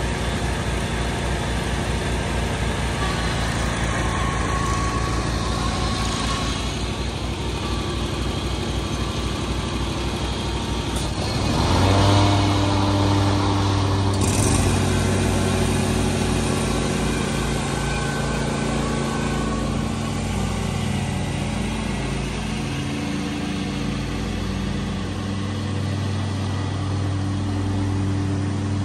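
Stand-on commercial lawn mower's engine running, speeding up with a rising pitch about twelve seconds in, then holding a steady, higher speed as it mows.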